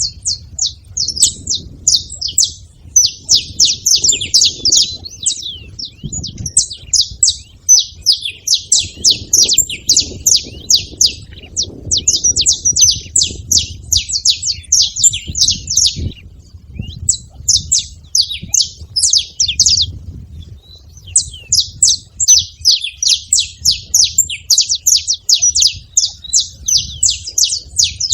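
Saffron finch (canário-da-terra) singing a fast, nearly continuous run of high chirping notes, pausing briefly about twenty seconds in.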